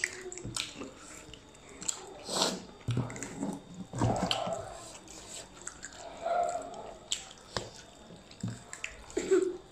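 Close-up eating sounds from a person eating by hand: scattered wet mouth clicks and smacks, and fingers scraping a brass plate, with a few brief murmured voice sounds.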